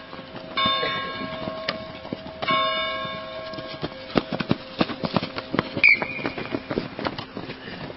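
A bell tolling, struck twice about two seconds apart, each stroke ringing on. From about four seconds in come quick thuds of feet running on grass, with a short shrill sound near six seconds in.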